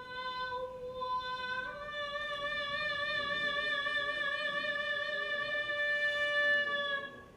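Solo female vocalist holding one long sustained high note with a gentle vibrato, stepping up slightly in pitch about a second and a half in and releasing it near the end.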